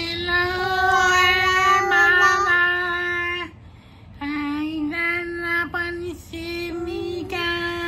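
Singing voice holding long, steady notes: one long note, a brief pause about three and a half seconds in, then a run of shorter held notes.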